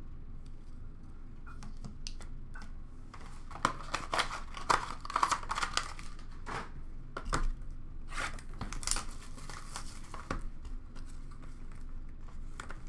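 Cardboard card boxes and packaging being handled and rummaged in a plastic bin: irregular crinkles, rustles and clicks, busiest from about three and a half seconds in.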